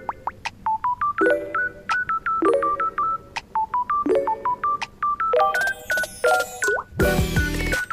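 Background music: a light, bouncy tune of short high beeping notes in a phrase that repeats about every second and a bit, turning fuller and busier near the end.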